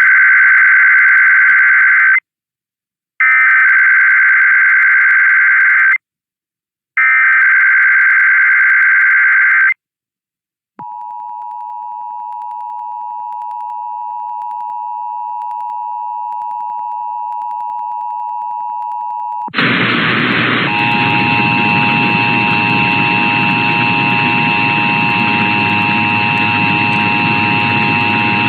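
Emergency Alert System test signalling: the warbling digital data header sent three times with short gaps between bursts, then the steady two-tone attention signal. About two-thirds of the way through, a loud hiss with a high steady tone joins the tones and runs on over them.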